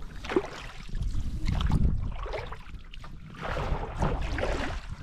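Oars splashing and pulling through the water as an inflatable PVC rowing boat is rowed, with water sloshing against the hull, in surges about a second and a half long. Wind buffets the microphone with a low rumble.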